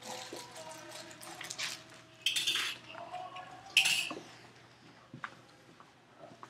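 Objects being handled and knocked together: scattered light clicks, with two short, louder clattering noises about two and a half seconds in and again near four seconds.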